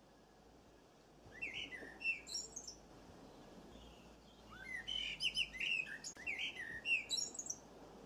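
Small songbird chirping: a short run of quick rising and falling chirps about a second in, then a longer, denser run of chirps from about four and a half seconds in.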